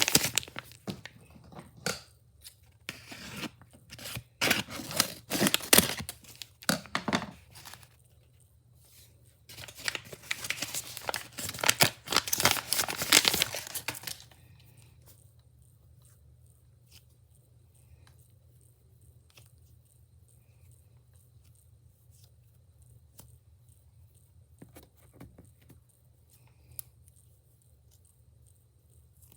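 Packaging being torn open and crinkled by hand in rough bursts for about fourteen seconds, with a short pause about halfway through. After that it goes near quiet, with only a few faint clicks.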